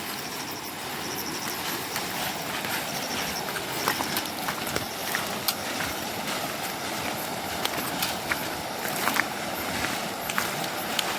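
River water rushing steadily, with scattered small clicks and knocks on top. A row of short, high chirps repeats through the first few seconds.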